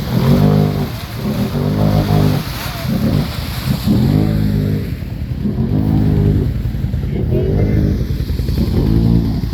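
ATV engine revved in short bursts about seven times, each rising and falling in pitch, over a steady low rumble.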